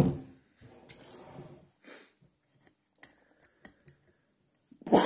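A thump at the start, then a few light clicks as a plastic milk-drink bottle cap is handled, and a loud sneeze near the end.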